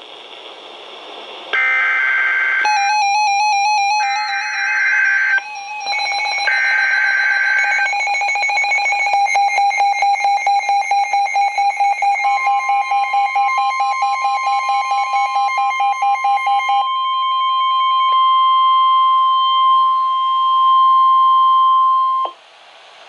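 A garbled jumble of electronic alert tones from a NOAA Weather Radio broadcast: warbling tones, then rapid pulsing tones, with the steady 1050 Hz warning alarm tone running underneath for about ten seconds. The tones cut off suddenly near the end, leaving radio static, as the transmitter goes down.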